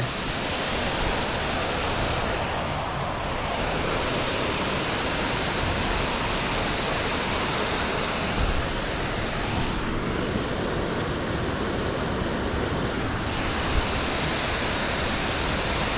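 Steady rushing of water over a creek waterfall, an even, full wash of noise.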